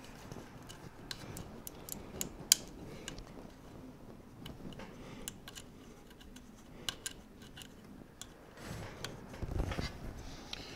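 Small plastic plug-in cable connectors on a 3D printer's Z-axis stepper motor and end stop being handled and pushed home, giving scattered light clicks and ticks among the rustle of wires and braided sleeving. A low rubbing rustle of handling rises near the end.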